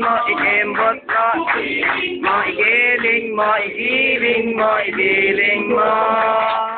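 Voices singing or chanting loudly, led by a man's voice, with no instruments heard. The pitch wavers throughout, then settles into a long held note near the end.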